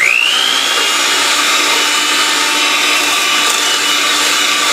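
Electric hand mixer with wire beaters switched on, its motor whine rising to speed in the first half second and then running steadily. It is whipping powdered sugar into stiffly beaten egg whites for royal icing, the beaters working in a stainless steel bowl.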